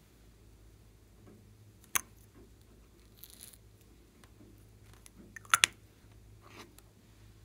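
Small plastic makeup items being handled and set into a glass bowl: a sharp click about two seconds in, a brief soft hiss, then two quick clicks a little past five seconds, over a faint steady hum.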